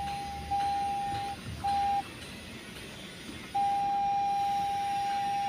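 An electronic beeper sounding one steady mid-pitched tone in several long beeps of uneven length, the last lasting about two seconds.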